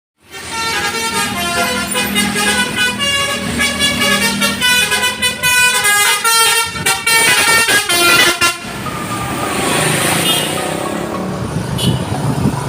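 Bus's telolet musical air horn playing a fast multi-note tune, which stops about eight and a half seconds in. The rushing noise of the bus passing follows.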